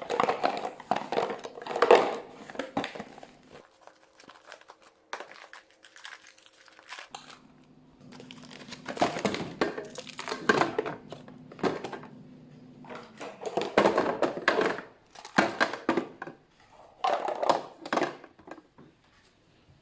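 Plastic food bags crinkling and rustling in repeated bursts as they are handled, with a few light thunks. A low steady hum runs underneath, stops for a few seconds, then starts again.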